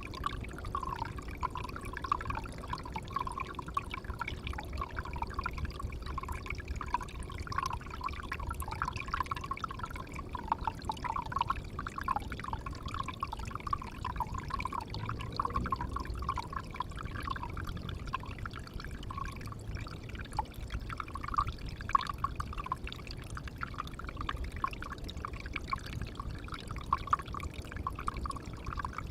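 Water pouring and trickling steadily into a pond, a continuous splashing patter.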